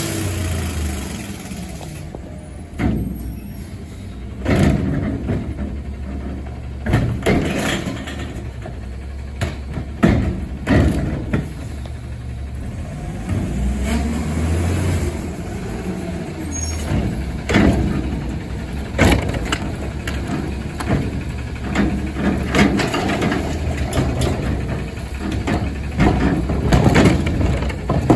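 McNeilus front-loading garbage truck's diesel engine running steadily as the truck pulls up to the curb, broken by about a dozen short sharp clanks and hisses from the truck and its carry can working the carts.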